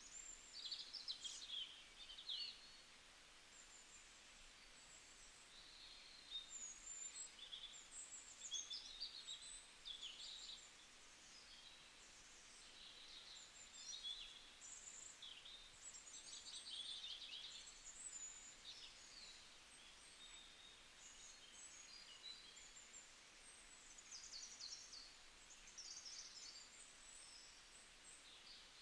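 Faint bird calls: many short chirps and quick sweeping whistles, scattered irregularly over a steady low hiss.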